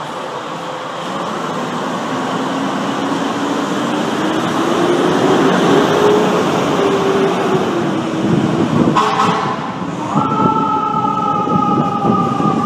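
Fire ladder truck on an emergency run, its engine and the traffic rumbling under a low whine that slowly rises in pitch. About nine seconds in the truck's air horns give a short blast, then a long, loud, steady blast.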